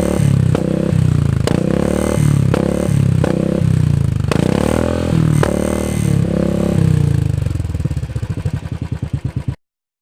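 Royal Enfield single-cylinder motorcycle running through an aftermarket silencer, blipped up and down in repeated short revs with a deep, bassy exhaust note. Near the end it drops back to a slower, separate thudding beat before the sound cuts off suddenly.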